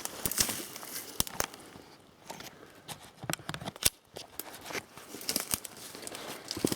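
Twigs and brush crackling and snapping, with irregular sharp clicks over a dry rustle.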